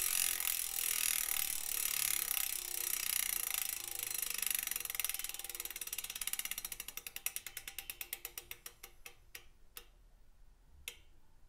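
Freehub of a DT Swiss 370 rear hub fitted with a 36-tooth Ratchet LN ring, clicking as the rear wheel coasts: a fast buzz of clicks that slows down as the wheel spins down, ending in a few single clicks near the end.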